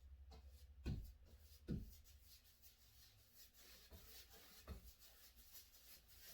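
Faint rubbing of a paintbrush stroking paint onto a wall, with three soft knocks: about a second in, just before two seconds and near five seconds.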